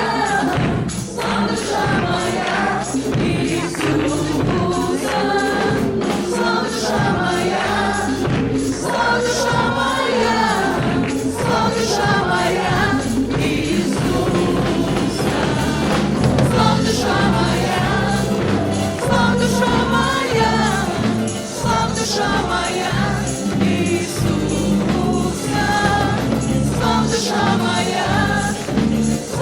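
Live praise-and-worship music: many voices singing together over a band with a steady beat.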